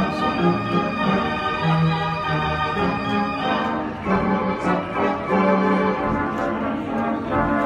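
Robert Morton theater pipe organ playing music, sustained full chords that change every second or so.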